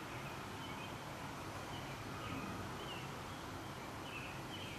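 Small birds chirping, with short high chirps every second or so over a steady background hiss.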